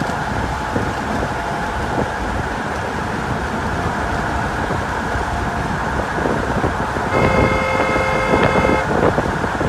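Steady traffic noise with a vehicle horn sounding once, for about a second and a half, about seven seconds in.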